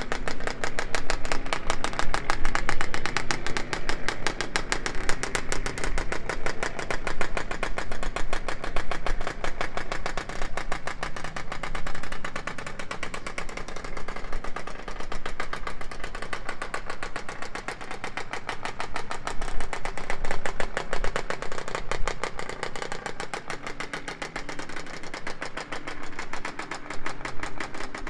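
The Voskamp Kreidler GP 50 racing motorcycle's 50 cc two-stroke single-cylinder engine running in a fast, even stream of firing pulses, its level rising and falling.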